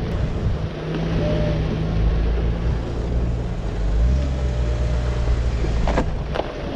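Jeep Wrangler's engine running at low speed as it crawls over a rocky off-road trail, with wind buffeting the microphone and tyre and gravel noise. The engine note shifts a couple of times, and there are a couple of sharp knocks near the end.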